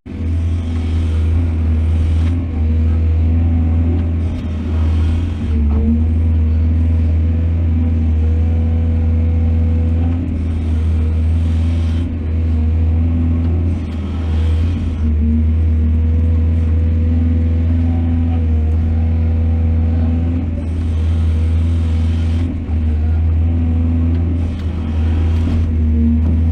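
Heavy diesel engine of an excavator running steadily with a deep, constant drone, overlaid every few seconds by short rushes of higher noise.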